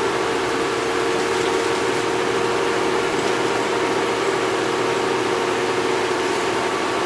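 A bus's engine running steadily, heard from aboard the bus: an even hum and rumble that holds the same pitch with no change.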